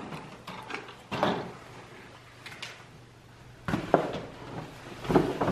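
Knocks, bumps and rustling of boxes, bags and a plastic ornament tube being moved about while someone rummages through stored items, about half a dozen separate clatters.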